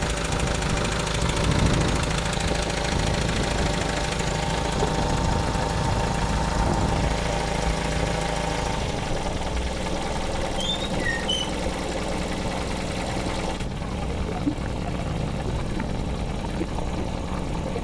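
Toyota 5K four-cylinder petrol engine running steadily at idle. The ignition coil has just been rewired through its ballast resistor, and the engine now starts and keeps running.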